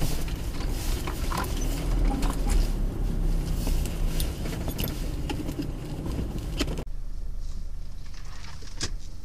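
Off-road vehicle driving over rough, rutted ground, heard from inside the cabin: engine rumble mixed with rattles and knocks. About two-thirds in it changes abruptly to a quieter, steady low engine rumble as the vehicle crawls slowly, with one sharp click near the end.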